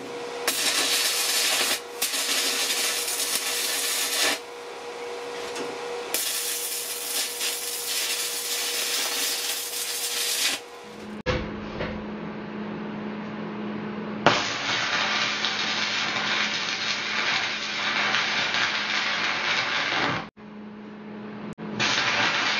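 Stick (MMA) electrode arc welding on the thin sheet steel of a washing-machine cabinet, the arc crackling and sizzling in several runs of a few seconds with short breaks between, as screw pieces pushed into the holes are welded in to close them. A faint steady hum runs underneath.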